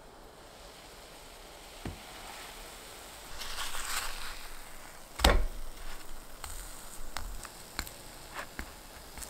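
Bread frying in oil in a pan, with a faint sizzle. There is one loud knock about five seconds in and a few lighter taps and clicks of a wooden spatula against the pan after it.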